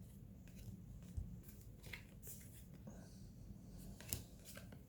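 Basketball trading cards being flipped through by hand: faint soft slides and clicks of card stock at irregular moments, the sharpest about four seconds in.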